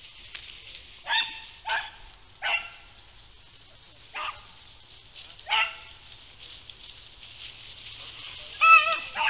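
Rabbit-hunting hounds baying: about seven short barks spread out with gaps, the last two close together near the end. The dogs are giving tongue on a rabbit they have found.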